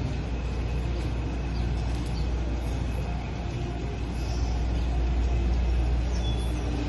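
Steady low rumble of city background noise, with a faint hum underneath.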